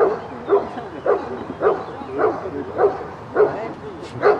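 A Briard barking repeatedly at a steady pace, about two barks a second, as it guards a basket.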